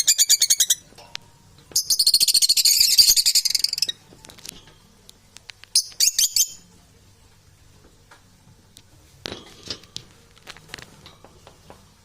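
Parrot calling: a fast pulsed trill for the first second, then a harsh screech about two seconds long, and a couple of short squawks near the middle, followed by faint clicks and scuffling.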